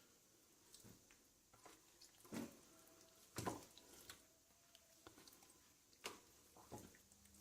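Faint wet handling of a raw chicken as hands rub marinade into it, with a few soft knocks and squishes, the loudest about two and a half and three and a half seconds in and another near six seconds.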